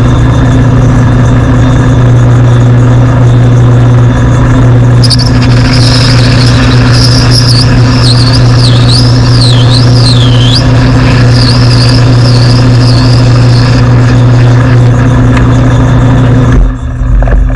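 Metal lathe running with a steady motor hum while the cutting tool takes stringy chips off a spinning white plastic workpiece. From about five seconds in, a high, wavering squeal from the tool in the cut comes and goes for about nine seconds.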